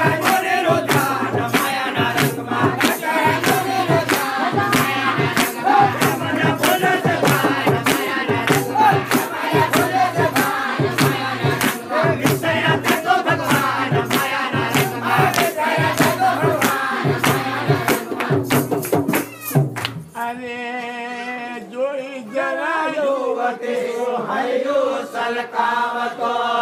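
A Gujarati devotional bhajan sung by a group of voices over a steady, fast percussion beat. About twenty seconds in, the percussion stops and the singing goes on over a sustained held drone.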